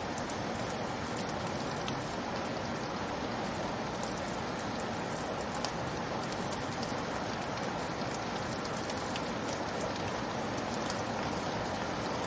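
Steady rain falling, a constant hiss with scattered light drop ticks.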